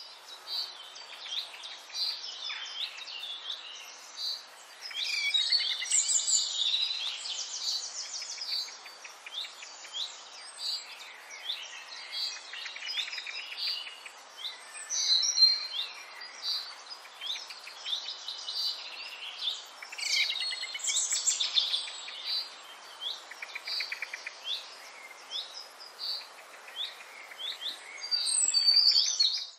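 Several birds chirping and singing, many short calls and trills overlapping, over a faint steady outdoor background.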